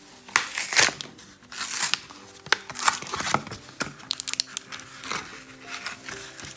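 A foil trading-card booster pack being torn open and its wrapper crinkled: a run of irregular sharp tearing and crinkling bursts, loudest about a second in.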